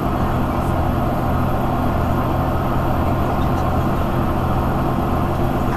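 Cummins ISL 8.9 inline-six turbodiesel of a Thomas Saf-T-Liner HDX school bus running with a steady, even low drone, heard from inside the passenger cabin.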